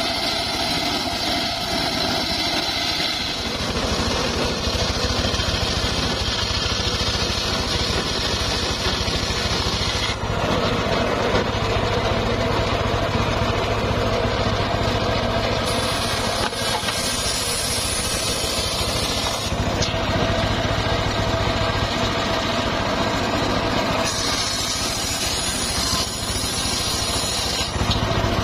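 Engine-driven homemade circular sawmill running steadily, its blade sawing through timber, with the sound changing several times as the cut goes on.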